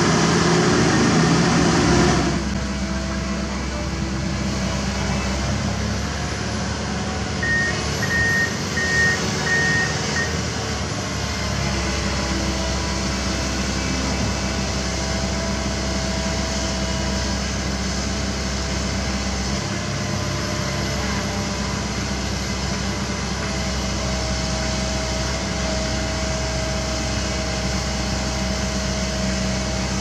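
Komatsu PC195LC excavator's diesel engine running steadily under digging work. It is louder for the first two seconds, then settles. A short run of high, evenly spaced beeps sounds about eight seconds in.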